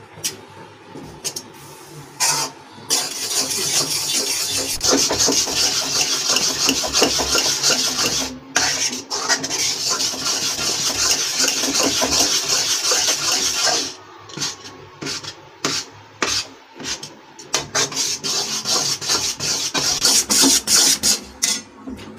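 Metal spoon scraping and stirring a thick gram-flour and sugar-syrup batter against a metal kadhai. The scraping is quieter for the first few seconds, then fast and continuous for about ten seconds, then breaks into separate strokes with short gaps.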